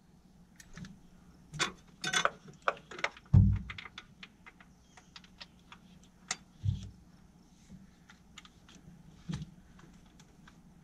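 Irregular clicks, taps and rattles of hand tools and spark plug wire boots being handled in a truck's engine bay, with a couple of dull thumps.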